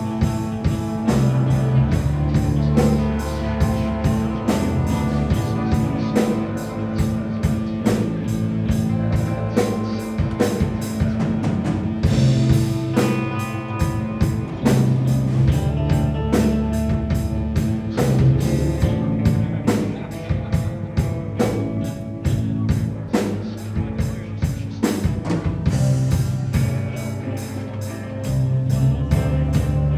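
Live instrumental rock band playing: electric guitars over sustained low notes, with a drum kit keeping up fast, dense cymbal and drum hits.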